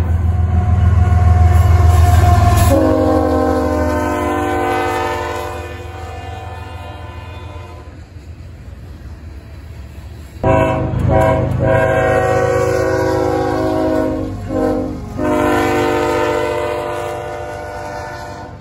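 Multi-chime air horn of a diesel freight locomotive sounding over the low rumble of the engine and passing cars. The first blast drops in pitch about three seconds in as the locomotive goes by and fades out. From about ten seconds in comes a second sounding: a long blast, a short one, then another long blast.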